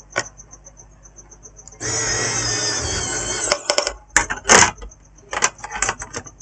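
A small tool whirring steadily for about a second and a half, then clicks and handling noises on the workbench, over a faint, rapid, high-pitched ticking.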